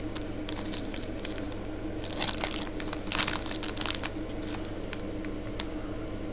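Plastic wrapper of a trading-card box topper crinkling as it is handled and torn open by hand, in short scattered bursts of rustling and clicks, heaviest around two and three seconds in.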